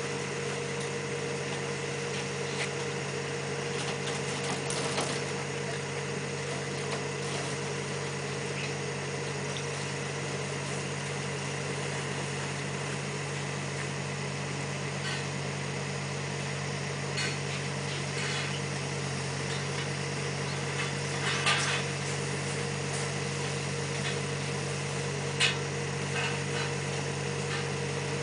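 Septic-tank work machinery running with a steady, even hum, while scattered clicks and knocks of hose and tools sound over it, the loudest a little past the middle and near the end.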